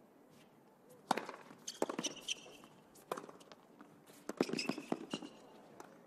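Tennis ball struck by racket and bouncing on a hard court: a serve about a second in, then a run of sharp hits and bounces as the point is played, with short squeaks of tennis shoes on the court.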